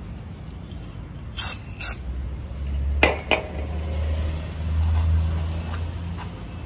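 Two short hisses of an aerosol brake-and-parts-cleaner spray about a second and a half in, then two sharp clicks about three seconds in, with a low rumble through the middle.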